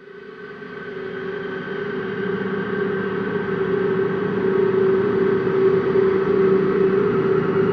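Dark ambient drone fading in from silence: several steady held tones layered into a gong-like hum, growing louder over the first few seconds and then holding steady.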